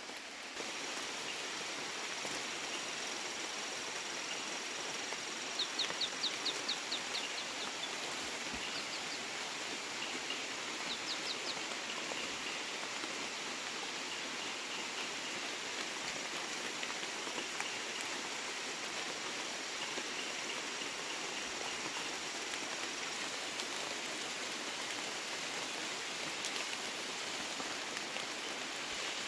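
Steady patter of rain on forest foliage, with a thin steady high tone through most of it. About six seconds in an animal call rings out as a run of about eight quick notes, followed by a few shorter runs of notes a few seconds later.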